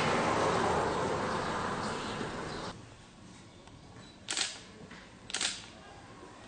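A steady hiss that cuts off suddenly about two and a half seconds in, followed by two sharp clicks about a second apart.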